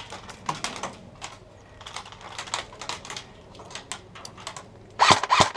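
Airsoft guns firing: scattered sharp snapping clicks at an irregular pace, with a quick cluster of louder shots about five seconds in.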